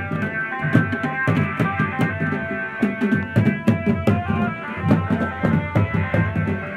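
Dance music led by drums: quick, steady drum strokes under a sustained melody line.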